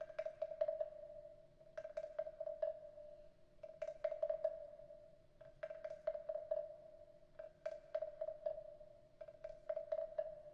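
Wooden frog percussion instrument (frog guiro) played in about six short bursts of rapid clicks, roughly one every two seconds, each burst ringing at one pitch from the wooden body.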